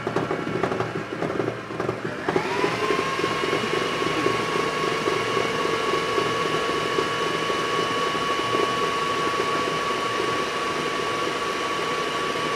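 Electric stand mixer beating butter icing with its flat paddle beater. About two seconds in, its motor whine rises sharply, then holds steady at high speed.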